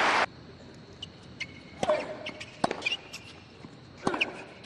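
Tennis ball bounced on a hard court a couple of times, then struck by the racket on a serve about four seconds in, over a hushed stadium crowd. Loud crowd noise cuts off abruptly just after the start.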